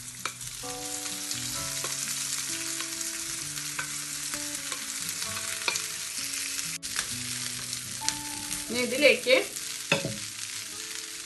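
Boiled potato cubes tipped into hot oil in a nonstick frying pan, with knocks from the spoon early on, then a steady sizzle of frying. Near the end there are two louder scrapes of the utensil in the pan.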